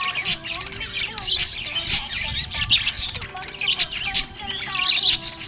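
Small pet parrots chirping and chattering without a break, a dense stream of short high chirps cut through with sharp squawks.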